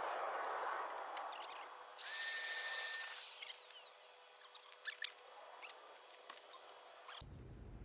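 A small electric motor whirs at a steady pitch for about a second, about two seconds in, then winds down with a falling whine.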